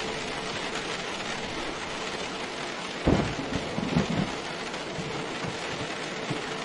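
Steady rain falling, with a short, sudden clap and rumble of thunder about three seconds in that fades within a second or two.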